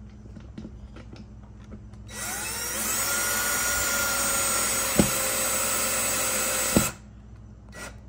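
Cordless drill-driver driving a screw through soft plastic: the motor spins up with a rising whine about two seconds in, whirs steadily for about five seconds, and stops abruptly near the end. Two sharp clicks come over the whir, the second just before it stops.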